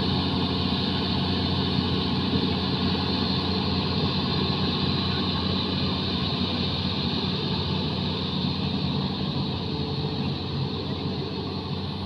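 Diesel engine of a Zoomlion ZE215E crawler excavator running with a steady, even hum while the boom lifts and swings a loaded bucket. The level eases slightly near the end.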